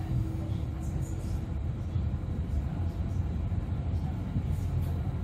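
Interior running noise of a Citylink tram-train under way: a steady low rumble, with a faint steady hum in the first second and a half.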